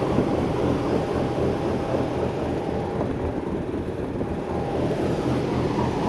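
Steady low diesel idle of a parked truck, with a regular fine pulsing in the rumble and a faint steady whine above it.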